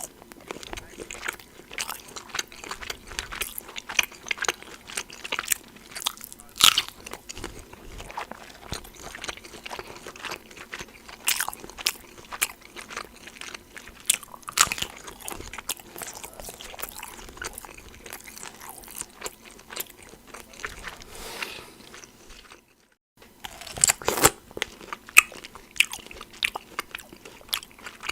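Close-up chewing of sausage: many irregular small wet clicks and crunches. After a short silence near the end, a pear is bitten and chewed with louder, crisp crunches.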